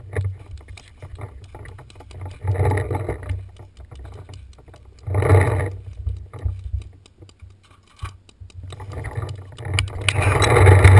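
Rustling and rubbing noise on a moving camera's microphone, with a steady low rumble, faint scattered clicks and three louder bursts, the last and longest near the end.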